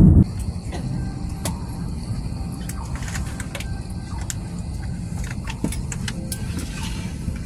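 A split second of loud jet engine rumble from the takeoff roll, then a jet airliner's passenger cabin: a steady low hum with scattered light clicks and knocks.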